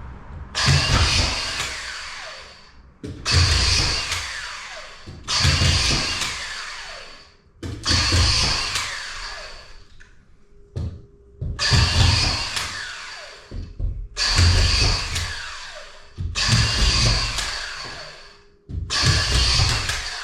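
Autofeed drywall screw gun driving screws into plasterboard, about eight times at a steady pace: each a sharp burst of motor whine that winds down as the trigger is released.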